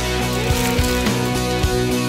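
Background pop-rock song in an instrumental stretch between sung lines, with a steady drum beat under held guitar notes.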